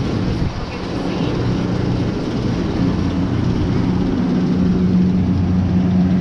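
A machine's steady low hum with a deep drone, growing stronger about halfway through.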